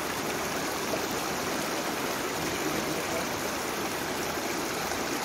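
Steady rushing of stream water flowing over rocks.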